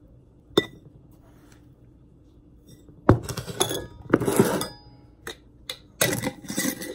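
Glass mason jars and a metal sugar canister clinking and knocking together as they are handled on a counter. There is a single sharp clink near the start, then a busy run of clinks and clatter from about three seconds in.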